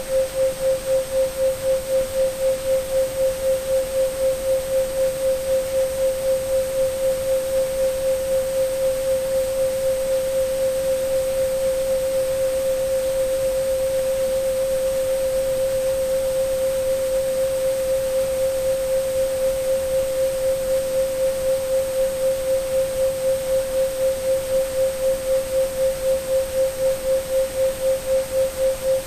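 Synthetic 528 Hz pure tone held steady, its loudness pulsing several times a second, the pulsing fading almost away in the middle and growing strong again near the end. Under it lies an even hiss of mixed white and pink noise, with a faint, very high steady tone.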